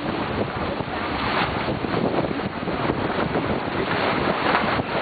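Wind buffeting the microphone over the rush of water along the hulls of a trimaran under sail, a steady wash of noise.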